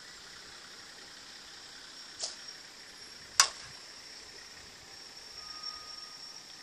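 Softball bat striking a softball off a pop toss: a single sharp crack about three and a half seconds in, with a lighter click about a second before it.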